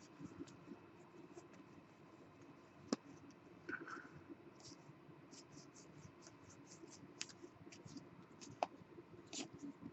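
Faint handling of trading cards: a stack of base cards being slid and flipped through by hand, with soft brushing swishes and scattered light clicks, a few sharper single clicks among them.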